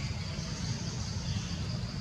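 Outdoor ambience: a steady low rumble, like an engine running, under a steady high insect drone.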